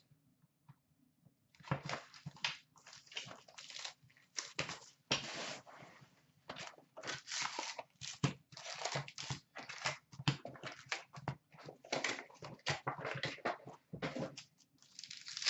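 A box of Upper Deck SP Authentic hockey card packs being opened and its foil packs handled and torn open: irregular crinkling, rustling and crackling of wrappers and cardboard. It starts after a brief quiet moment and goes on busily.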